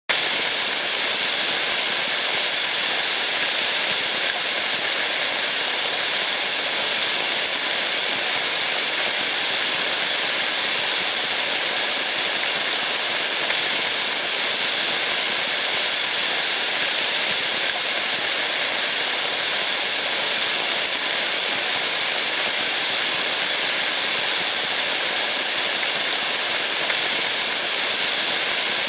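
Rain falling steadily: an even, unbroken hiss, strongest in the high range.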